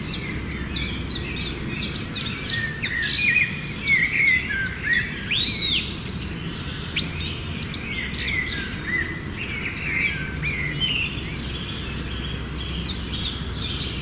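Many small birds calling at once: a dense, continuous overlap of short high chirps and quick down-sweeping notes, over a steady low background hum.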